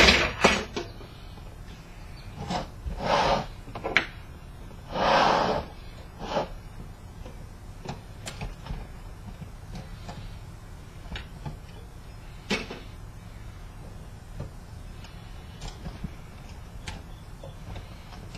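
Hand tools working on a projector lamp's metal housing: a sharp knock at the start, then clicks and knocks of a screwdriver against metal, two longer scrapes about three and five seconds in, and small scattered ticks as the screws are worked loose.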